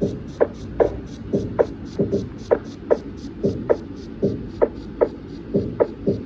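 Drum beat built from sampled field recordings, starting at once with a steady high hi-hat tick about five times a second. Punchy snare and kick hits fall in pitch as they sound; the snare is a slice of a recording of dropped sand, pitched up two octaves.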